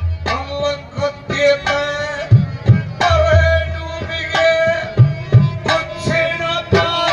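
Haryanvi ragni folk music: a hand drum plays a steady beat with deep low strokes under a held, sustained melody line.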